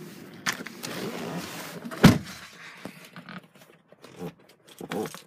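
Rustling and handling noise as someone shifts into the driver's seat of a car, with one heavy thump about two seconds in and a few lighter knocks later.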